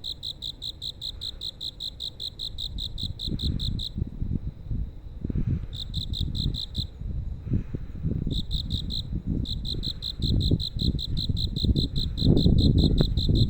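A cricket chirping in trains of even, high-pitched pulses, about five a second, broken by short pauses. Under it a low, uneven rumble grows louder near the end.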